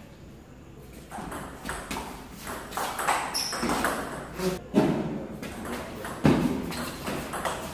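Table tennis rally: the ball clicking off the paddles and bouncing on the table in an irregular run of sharp knocks, with two harder hits about five and six seconds in.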